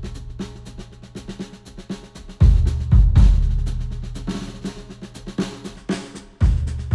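Music with a drum kit and deep bass hits, with strong low thumps about two and a half seconds, three seconds and six and a half seconds in. It is played through headphones and picked up by microphones on a measurement rig.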